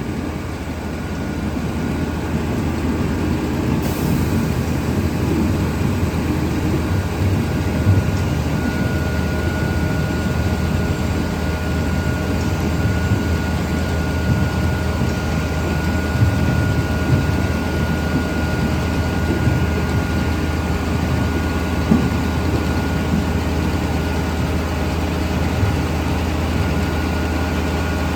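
Grimme Varitron 270 self-propelled potato harvester running steadily: a low engine drone with a thin, steady whine above it and an uneven clatter underneath.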